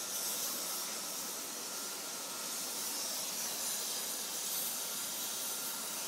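Gas torch flame hissing steadily as it heats a metal joint.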